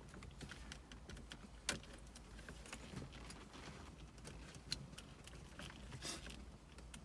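Irregular plastic clicks and light rattling as wiring connectors are worked loose behind a pried-up dashboard panel, with two sharper clicks about a second and a half in and near five seconds.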